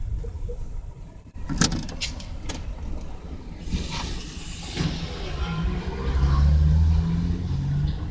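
Road traffic passing close by. A car's tyre hiss comes about four seconds in, then a low engine drone builds to its loudest in the last few seconds as a pickup truck goes by, with a few knocks near the start.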